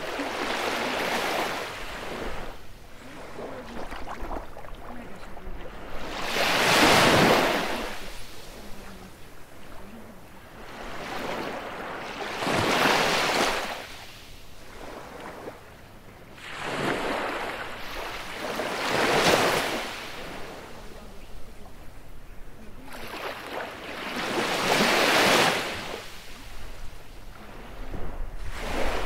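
Baltic Sea surf on a beach: waves break and wash up about every six seconds, each one swelling and then fading, with a softer wash of water between them.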